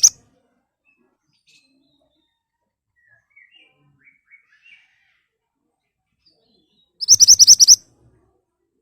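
Pied bushchat (mantenan) calling: a rapid burst of about eight sharp, high notes just after seven seconds in, lasting under a second. This is the sharp rapid 'nembak' delivery of a bird in full voice. Faint soft chirps come in the quieter stretch before the burst.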